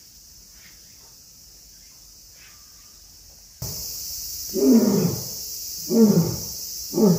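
A male lion roaring: a little past halfway, three deep calls come about a second apart, each falling in pitch, the first the longest. Faint outdoor background with a few insect-like chirps before them.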